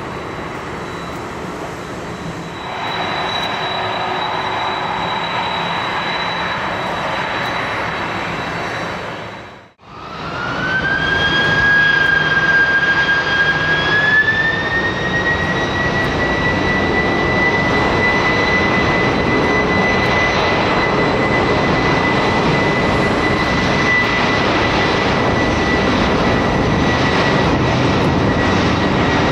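Boeing 747-400 freighter's four jet engines running with a steady high whine. After a short break the whine climbs in pitch and grows louder about halfway through, then holds steady as thrust is added.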